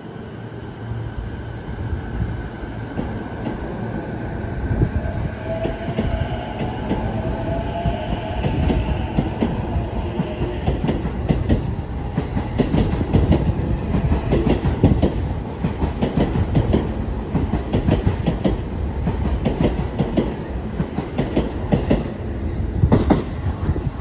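JR East E233 series electric train pulling out of a station. Its traction motors whine, rising in pitch as it gathers speed, and a growing run of wheel clacks over the rail joints plays over a low rumble as the cars pass.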